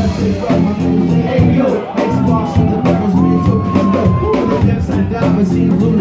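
Live hip-hop band playing: drum kit keeping a steady beat under guitar and keyboards, with a long held high note through the middle that steps up in pitch partway through.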